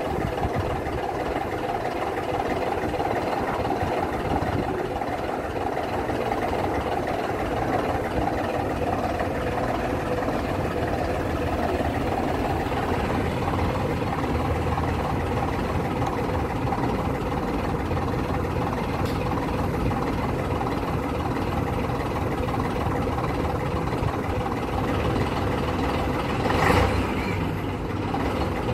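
Vintage double-decker bus's diesel engine idling steadily, with a brief louder burst of noise near the end.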